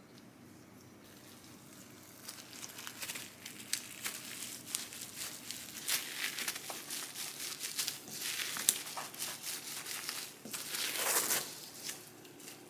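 Plastic wrap and a perforated plastic gimbap rolling mat crinkling and rustling in irregular crackles as a gimbap roll is rolled up and pressed, starting about two seconds in, with a louder burst of crinkling near the end.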